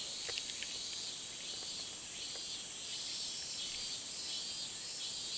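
Summer insect chorus: a steady high buzz that pulses about every half second or so. A couple of faint clicks come about a third of a second in.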